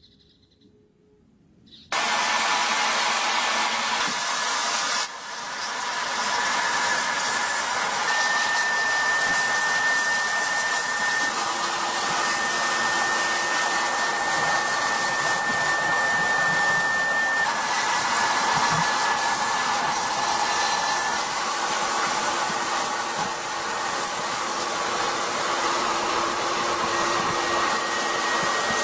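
Sandblast cabinet's blast gun running, a steady loud hiss of abrasive blasting the rust off steel gun parts. It starts about two seconds in, dips briefly a few seconds later, and a faint thin whistle rides over it for a while.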